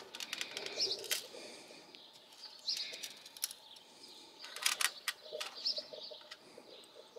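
A bird's short high chirps, repeated every couple of seconds, over scattered sharp clicks and knocks.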